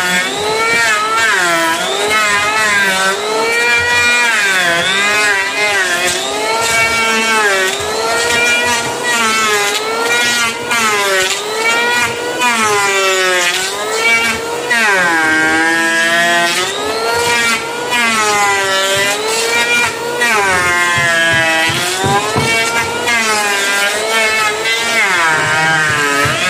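Electric hand planer running as it shaves a wood slab. Its motor whine drops in pitch each time a pass bites into the wood and climbs back as the load comes off, over and over.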